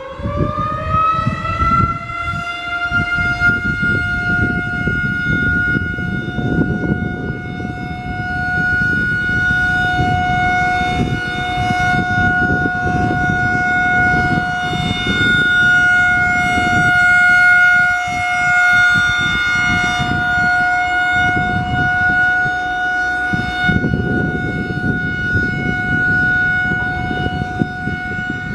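Federal Signal 2001-130 outdoor warning siren finishing its wind-up in the first two seconds, then holding one steady high tone for a test. A low rushing noise runs underneath.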